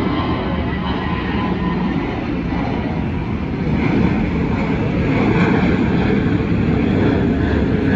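Jet engines of a taxiing Boeing 747 freighter running at low taxi power: a steady, loud engine noise with a faint whine on top. It grows a little louder about halfway through.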